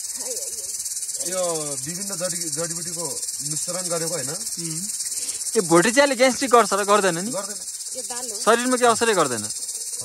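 A steady, high-pitched insect chorus, with people talking in short phrases over it, loudest about six and nine seconds in.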